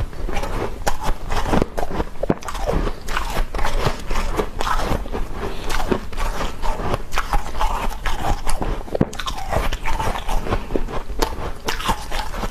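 Soft freezer frost being bitten and chewed close to the microphone: a dense, continuous run of small crisp crunches.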